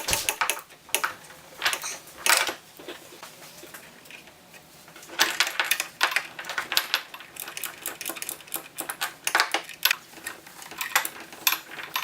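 Metal hand tools working the mirror's bolts and bracket hardware: runs of sharp metallic clicks and clinks in several bursts, with a quieter pause of about two seconds partway through.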